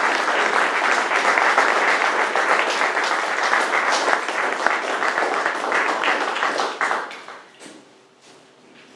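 Audience applauding, many hands clapping together, dying away about seven seconds in to a few scattered claps.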